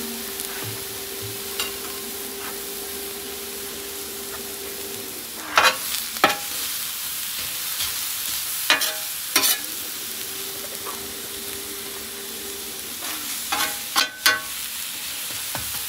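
Sliced onions and green bell peppers sizzling on a hot flat-top griddle, a steady frying hiss. A metal spatula scrapes and clanks against the griddle surface as the vegetables are turned, in short clusters about a third of the way in, around the middle and near the end.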